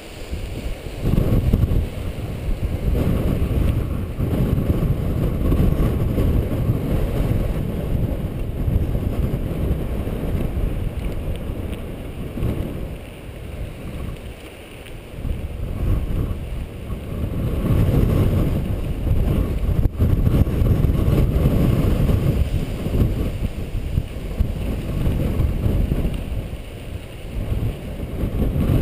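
Wind buffeting the microphone of a camera on a mountain bike, mixed with tyre rumble and rattle from riding a dry dirt singletrack. It eases for a moment around the middle and then picks up again.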